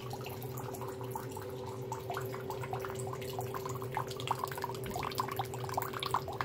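Thin stream of water from a bathroom sink tap trickling and splashing into the basin, with many small drip-like plinks and a steady hum underneath.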